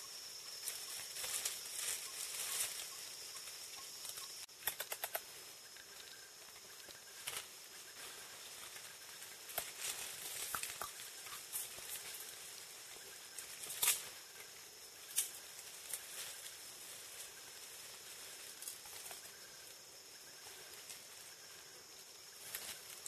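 Leaves rustling and twigs cracking as young mountain gorillas clamber and play in the undergrowth, with a quick run of ticks about five seconds in and a couple of sharper snaps later, over a faint steady high hiss of the forest.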